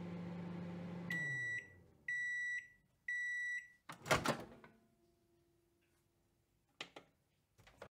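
Microwave oven running with a low hum that winds down as the cycle ends, then three beeps about a second apart signalling it is done. A loud clunk follows as the door opens, then a couple of faint clicks near the end.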